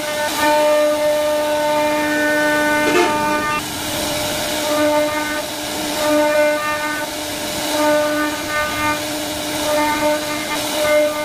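CNC router spindle carving wood: a steady high whine at a fixed pitch over the rasping hiss of the bit cutting. The whine fades briefly a couple of times as the cut changes.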